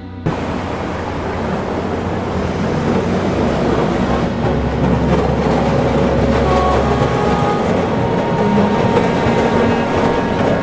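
SW6-class tram running along street track and passing close by: a rumble of steel wheels on rails that grows louder, heaviest for a few seconds in the middle, mixed with the noise of passing road traffic.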